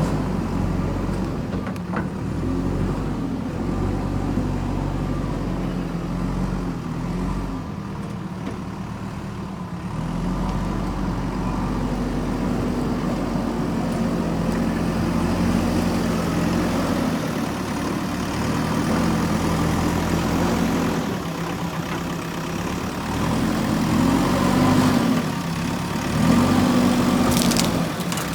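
JCB backhoe loader's diesel engine running under working load, its speed rising and falling again and again as the machine digs and moves. A brief hiss comes near the end.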